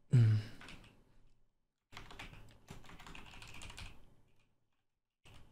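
Typing on a computer keyboard, a dense run of key clicks lasting about two seconds in the middle. It is preceded right at the start by a short low voice sound that drops in pitch, the loudest thing heard.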